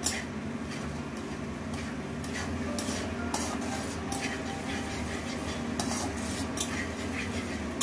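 Metal spatula stirring and scraping thick masala around a nonstick kadai in a string of short strokes, over a steady low hum. The masala is being fried until the oil separates from it.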